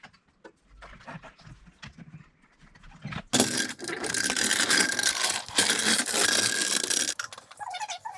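Scattered light clicks and taps of tools being handled, then a loud, dense mechanical noise lasting about four seconds, with a short break midway.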